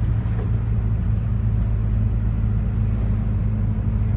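Ataman city bus under way, heard from inside the passenger cabin: a steady low engine drone with road rumble.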